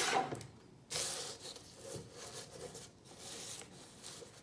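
A sheet of paper slid and rubbed over a paper trimmer's bed as it is lined up for cutting, in soft rustling strokes, the longest about a second in.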